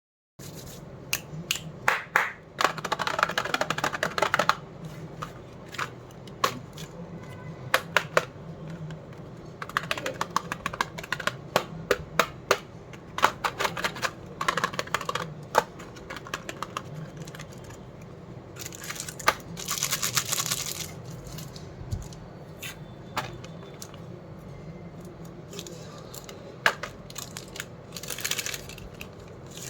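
Candy packets and plastic wrappers being handled: bouts of crinkling with many small clicks and taps, over a steady low hum.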